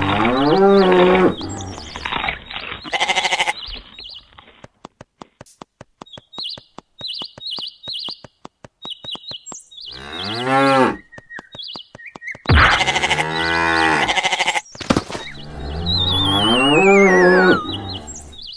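Cattle mooing, four long low calls across the stretch. A quick even run of ticks sits in the middle, and a falling whistle slides down near the end.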